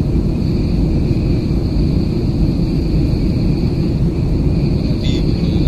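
Jet airliner cabin noise in flight: the steady drone of the engines and rushing air heard inside the cabin, with a brief click about five seconds in.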